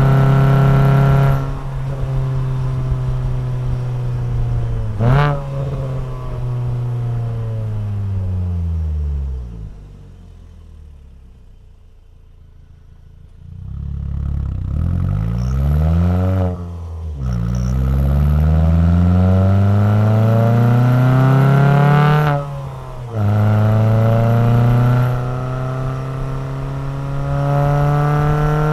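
Alfa Romeo 147 Twin Spark four-cylinder engine heard through a FORCE-G aftermarket exhaust. Revs fall away as the car slows and settle low and quiet for a few seconds around the middle. It then pulls up through the gears again, the pitch climbing and dropping at two gear changes.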